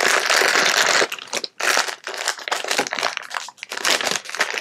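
Thin clear plastic bag crinkling as it is handled and opened: dense crinkling for about the first second, then short irregular crackles.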